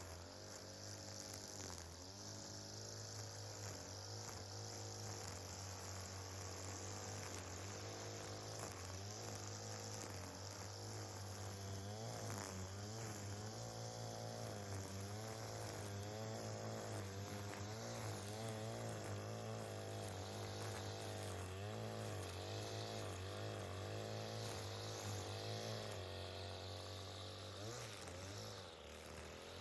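Lawn mower engine running, a steady low hum whose pitch wavers up and down, dipping briefly near the end.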